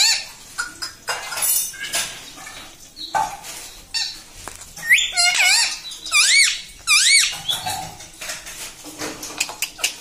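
Indian ringneck parakeet making high, squeaky calls that rise and fall in arches, with a run of them about five to seven seconds in, between short raspy chatter.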